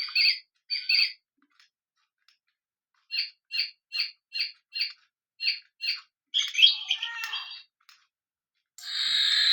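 Bird-song clock playing recorded bird calls through its small speaker: a string of short, evenly spaced chirps, then a busier, warbling song, then a harsher, steadier call near the end.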